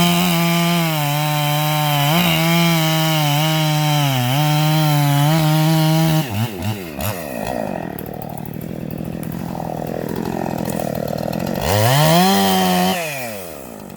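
Husqvarna two-stroke gas chainsaw held at full throttle and cutting for about six seconds, its pitch dipping briefly a couple of times. It then drops back to a low, uneven speed and is revved up once more briefly near the end.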